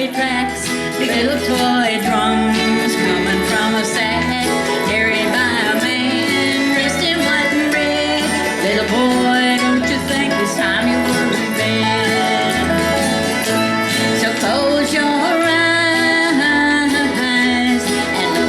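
Acoustic bluegrass band playing a song, with guitar over a steady bass line alternating between notes, and a voice singing.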